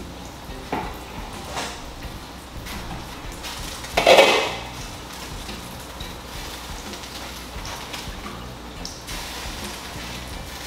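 Metal pots and utensils clinking on a stovetop, with one loud clang of a pot or lid about four seconds in that rings briefly.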